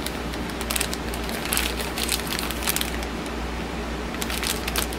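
Clear plastic bag with a coiled USB cable inside crinkling as it is handled and turned over, in quick irregular crackles.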